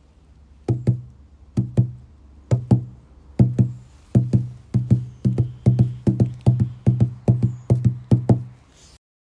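Foley heartbeat: deep double thumps in a lub-dub rhythm, starting slow and quickening to a racing beat before cutting off sharply near the end, over a low hum.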